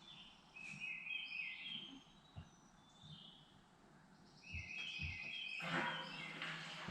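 Small birds chirping and calling in short phrases. About five and a half seconds in, a steady rushing noise with a low hum starts and keeps going.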